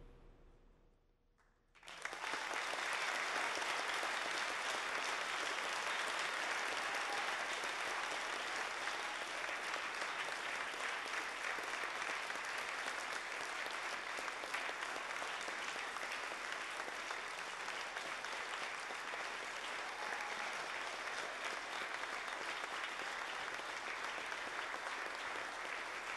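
The last notes of the music die away into a brief hush, then about two seconds in a large audience breaks into applause that keeps going.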